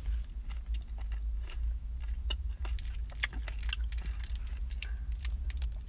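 Steady low rumble inside a car, with scattered small clicks and crackles from chewing a chocolate-coated ice cream bar with a crunchy topping.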